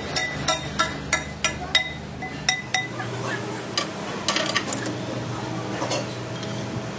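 A hammer striking a steel motorcycle front-fork tube, a quick series of about nine sharp, ringing metal blows, roughly three a second. After them come lighter, scattered metal clinks.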